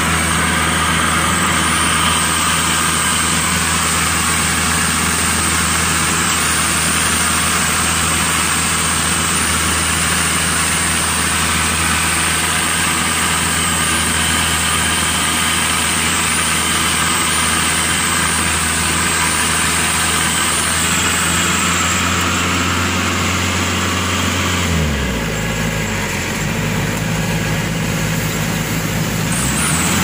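Maxxi Bimo 102 combine harvester running while cutting rice: a steady engine drone with a high mechanical whine from the threshing machinery. About twenty-five seconds in the engine note drops low for a few seconds, then climbs back up near the end.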